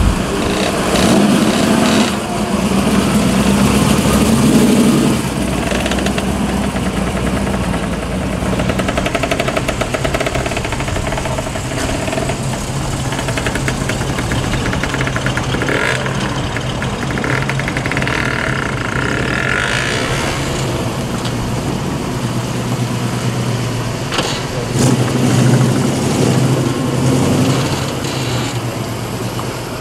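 Muscle car V8 engines running steadily, with louder swells in the first few seconds and again near the end.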